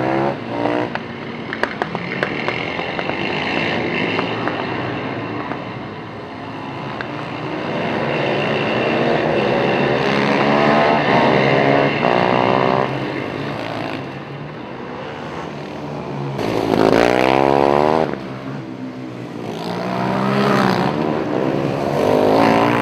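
Engines of several racing quads revving hard as they pull away and pass, their pitch climbing and falling again and again through gear changes. About sixteen seconds in, the sound cuts abruptly to another quad engine revving loud and close.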